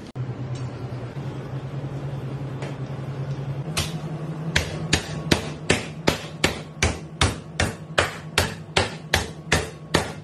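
Stainless steel saucepan slammed repeatedly onto raw whole octopuses on a wet surface, beating the flesh to tenderize it. The strikes begin about four seconds in and come rapidly and evenly at about three to four a second over a low steady hum.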